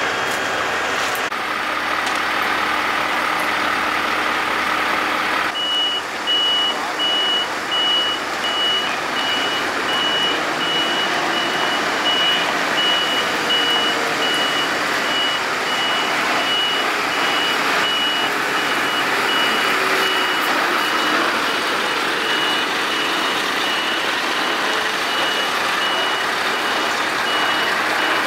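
Reversing alarm beeping repeatedly at a high pitch from about five seconds in, over the running of a Scania R650 V8 heavy truck as it manoeuvres with its low-loader trailer.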